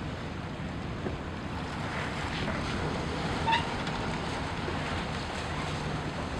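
Wind buffeting the microphone over the low steady hum of a boat engine out on the river, with a brief high chirp about three and a half seconds in.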